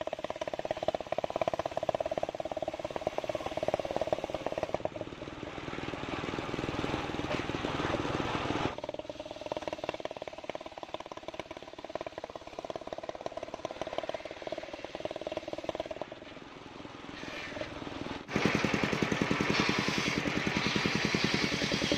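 Engine-driven portable circular sawmill ripping a sengon (albasia) log lengthwise. The engine runs with a steady, rapid beat. The blade's cutting noise swells from about five to nine seconds in. About eighteen seconds in, the sound turns abruptly louder and harsher as the blade cuts through the wood.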